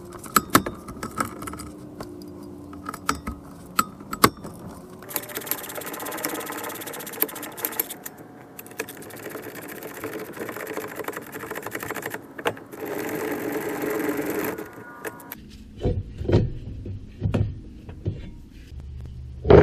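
Cordless power wrench running in three runs of a few seconds each, spinning out the 19 mm brake caliper mount bolts. Scattered tool clicks come before the runs and a few low clunks of metal parts follow them.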